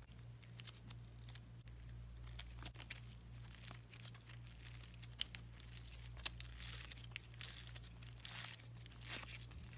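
Crinkly material such as paper or tape being handled and torn, in irregular crackles with a few sharper snaps about five to six seconds in, over a steady low hum.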